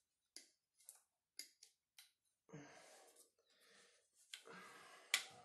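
Faint clicks and rustling of plastic grommets being worked into a tennis racket frame with a pointed tool. Several small clicks come in the first two seconds and a sharper click near the end is the loudest.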